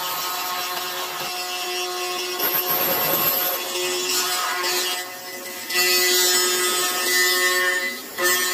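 Aluminium lock-slot milling machine (copy router) running with a steady whine while its cutter mills a lock slot in an aluminium door/window profile; the cutting noise swells louder several times as the handle guides the cutter.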